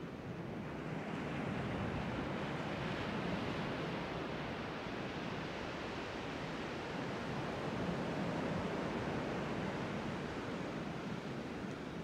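Pacific Ocean surf breaking and washing up a wide sandy beach: a steady rushing that swells louder twice as waves come in.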